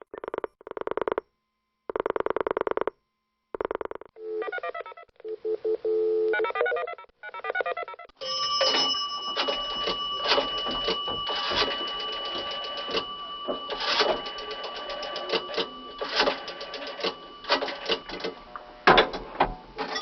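Telephone sound effects: a telephone bell rings in short bursts with silent gaps. A few seconds in it gives way to patterned electronic phone tones, then to a long stretch of rapid clicking over several steady whistling tones.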